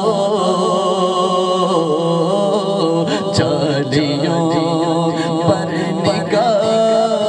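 A male voice singing an Urdu devotional kalam into a microphone, unaccompanied by instruments, in long ornamented notes that glide between pitches, over a steady low hum.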